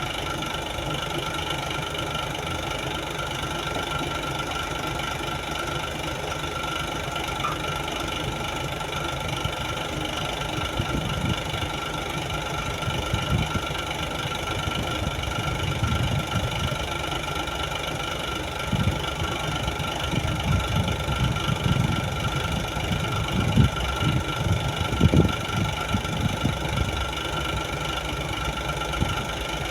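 A 55-ton crane's diesel engine running steadily with a constant hum. Irregular low thumps and rumbles from the machine working come in during the second half.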